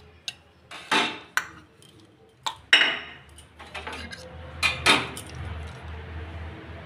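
Stainless steel bowls and a spoon clinking and knocking against a stainless steel plate. The sharp clinks come in three pairs, with smaller ticks between them.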